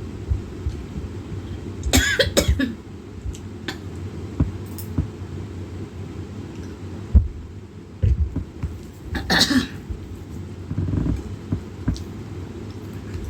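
A person eating, with two short coughs, one about two seconds in and one near nine seconds in, and a few small mouth clicks. A steady low rumble sits underneath.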